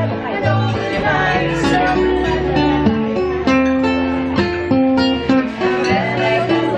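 Acoustic guitar strummed with a man and a woman singing a song together.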